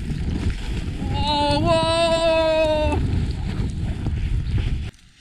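Storm wind buffeting the microphone in a loud, low, steady rumble, cutting off abruptly near the end. About a second in, a person lets out a long held call of about two seconds, stepping up slightly in pitch partway through.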